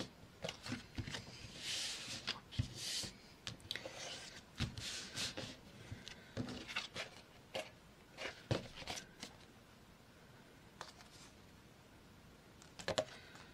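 Paper and cardstock being handled: sheets rustling, sliding and being folded and pressed flat, with light taps and clicks. The handling dies down about two-thirds through, and a few sharp clicks come near the end.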